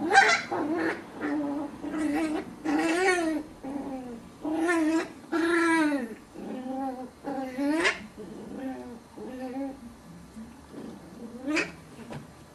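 Puppies yelping and whining in a long string of short, high calls, many falling in pitch at the end. They are loudest over the first eight seconds, then softer, with one last sharp yelp near the end.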